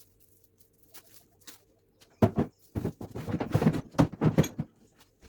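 Irregular rustling and light knocks from plastic-wrapped vegetables being handled and set into a fridge tray, clustered from about two seconds in until near the end.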